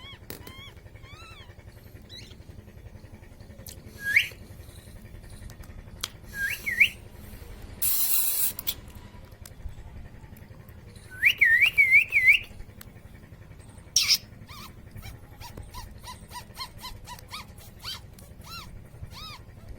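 Clear whistled notes, each rising and hooking upward: one about four seconds in, two close together near seven seconds, and four in quick succession around eleven to twelve seconds. Faint soft chirps fall between them, with a short hiss near eight seconds and a sharp click about fourteen seconds in.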